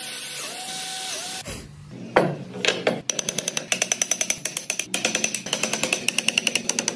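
Cordless drill running as its bit bores into hardwood, its motor whine rising and falling, then stopping about a second and a half in. A sharp knock follows, then a fast, regular ticking of about five or six strokes a second.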